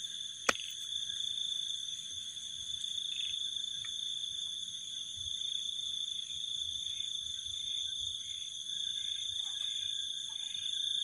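A steady chorus of insects trilling in high continuous tones, with a single sharp click about half a second in.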